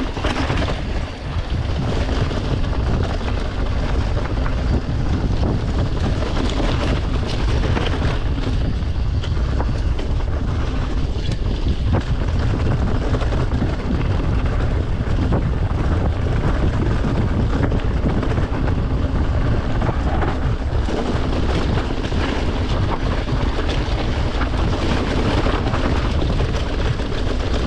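Wind rushing over the microphone of a mountain bike's action camera, a heavy steady rumble, with scattered knocks and rattles from the bike as it rides downhill over rough ground.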